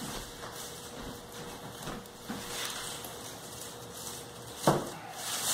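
Plastic wrapping crinkling and rustling as the plastic-wrapped tube of an 8-inch Orion XT8 Dobsonian telescope is carried and lowered. A single sharp thump near the end as the tube is set down.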